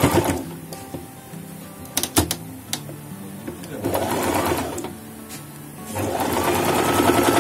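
Singer Promise electric sewing machine stitching fabric. A few sharp clicks come about two seconds in, then a short run just after four seconds, and from about six seconds in the machine runs steadily at an even stitching rhythm.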